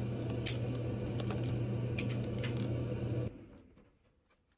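Light clicks of beads being handled and threaded onto a cord by hand, over a steady low hum that cuts off abruptly about three seconds in.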